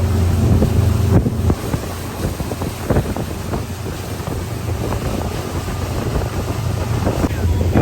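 Motorboat engine running under heavy wind buffeting on the microphone. The engine's steady low hum drops back about a second in, leaving mostly wind rush and crackle, and comes back up near the end.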